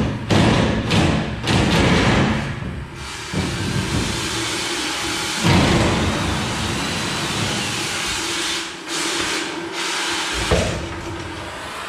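Oxy-acetylene cutting torch hissing as it burns off rusted, salt-corroded bolts on a steel hopper trailer. The loud hiss rises and falls, surging several times as the cut goes through.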